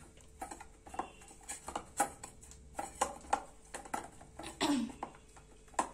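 Hands kneading soft flour dough in a stainless steel bowl: irregular soft slaps, presses and taps of dough and knuckles against the bowl, about one or two a second. A brief falling squeak comes about three-quarters of the way through.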